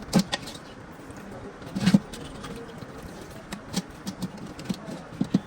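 Metal-on-metal knocks and clinks from hand tools and parts being handled. There are two louder knocks, one just after the start and one about two seconds in, followed by a scatter of lighter taps.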